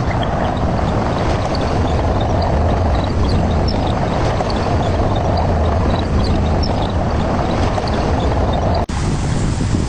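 Excavator's diesel engine running steadily, with a constant low hum, broken off abruptly about nine seconds in before the same running noise carries on.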